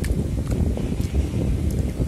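Low, uneven rumble of wind or handling noise on a phone microphone, with a few faint short clicks.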